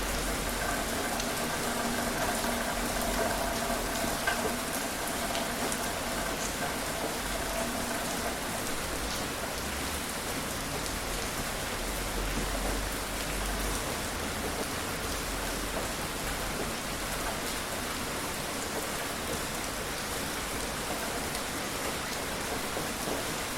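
Steady rain falling, a dense even patter of drops. A faint steady hum sits under it and fades out about a third of the way through.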